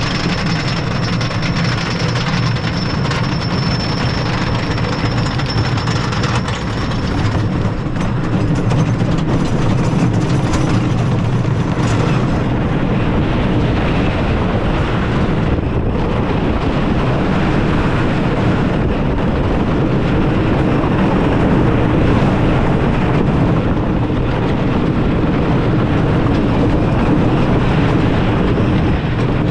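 Wooden roller coaster train running along its wooden track, rumbling and clattering with wind rushing past. A thin high whine is heard over the first few seconds, and the ride gets a little louder after about seven seconds.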